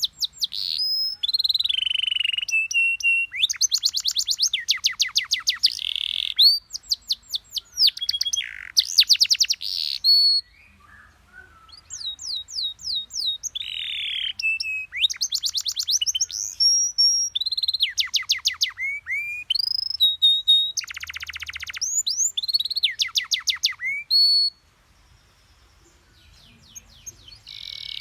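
Domestic canary singing: fast trills of repeated notes, rattling rolls and falling whistled slides, in phrases broken by two pauses of a second or two.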